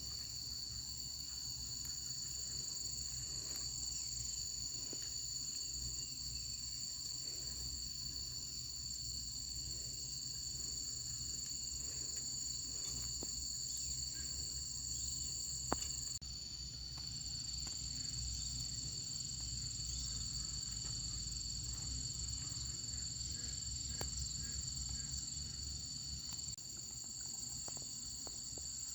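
Steady, continuous chirring of an insect chorus, with a single sharp click a little past halfway.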